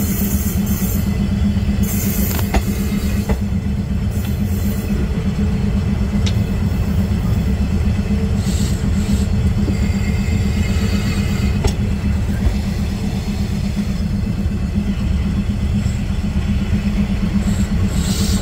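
Railway coach wheels rolling slowly on the rails: a steady, loud rumble with a few sharp clicks from the rail joints. Faint high-pitched squeal from the wheels comes in at times in the middle.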